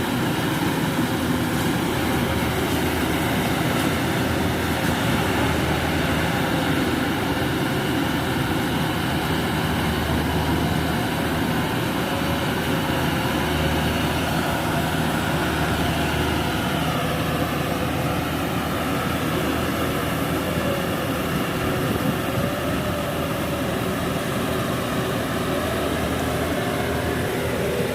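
Kubota DC70 rice combine harvester's diesel engine and threshing machinery running steadily under load, with a slight drop in pitch about halfway through.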